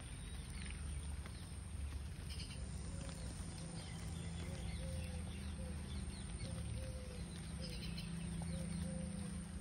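Outdoor ambience with birds chirping and a short, low animal call repeated over and over from about three seconds in, over a steady low rumble.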